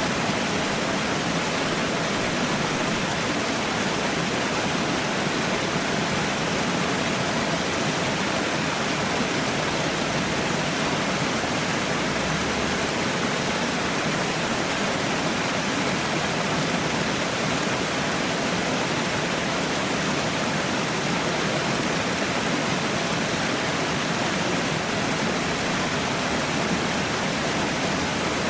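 Falling water: a steady, even rush of a small waterfall or cascade, unchanging throughout.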